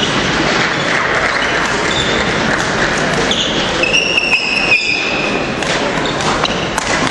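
Badminton rally on a wooden sports-hall court: short squeaks of shoes on the floor a little after three seconds in, then several sharp racket strikes on the shuttlecock in the second half, over steady crowd chatter.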